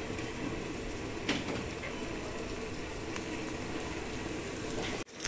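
Hot oil with mustard and cumin seeds sizzling in a small pan for a tempering as asafoetida is sprinkled in, with a few faint pops from the seeds. The sound cuts off suddenly near the end.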